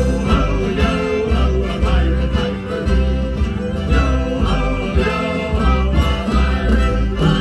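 A live band playing an instrumental stretch of a country-flavoured song, with string instruments over a steady low beat and no singing.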